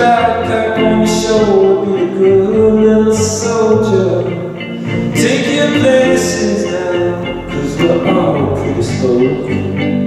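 A man singing a song over a strummed guitar in a live performance.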